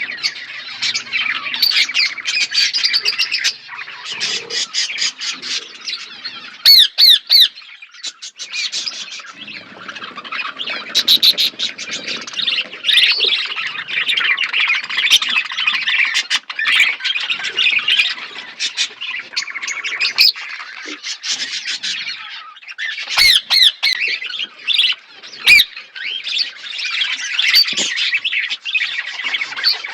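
A flock of budgerigars chattering and squawking together, many overlapping chirps and warbles with bursts of fast, clicky trills.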